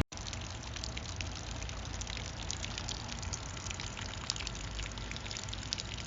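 Water spattering steadily, a continuous hiss full of small drop-like crackles.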